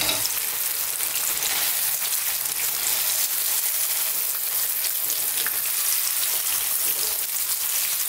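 Floured sea bass pieces sizzling steadily in hot oil in a frying pan, with a continuous hiss and small scattered crackles, the fish nearly done and crisp.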